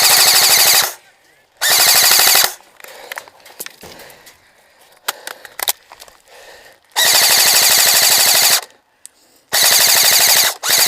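Airsoft gun firing loud full-auto bursts of rapid shots: one burst right at the start, another about two seconds in, a longer one about seven seconds in, and another near the end. Scattered single clicks fall in the quieter gap between them.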